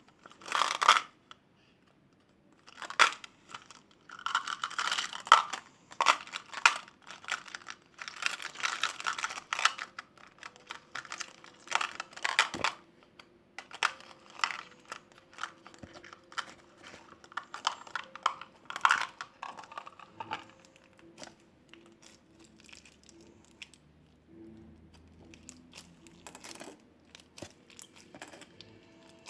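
Beaded slime being squeezed and worked by hand, giving irregular bursts of crunchy crackling and popping that thin out over the last third.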